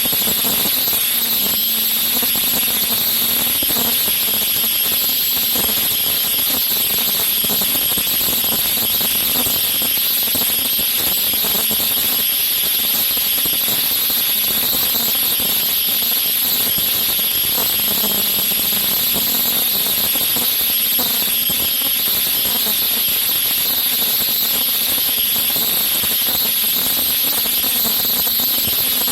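Automatic ultrasonic face-mask body and ear-loop welding machine running, with a steady high-pitched whine from its ultrasonic welders over a haze of machine noise.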